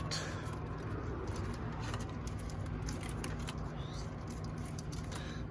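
Engine wire harness being handled and straightened: faint rustling and light plastic clicks of the injector and coil wires over a steady low background hum.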